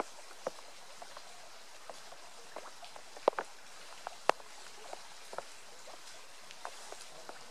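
Footsteps of trail runners passing on the path: irregular light footfalls, the two loudest about three and four seconds in.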